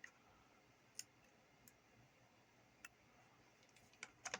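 Near silence broken by a few faint, sharp clicks from small parts being handled: one about a second in, another near three seconds, and a quick cluster near the end.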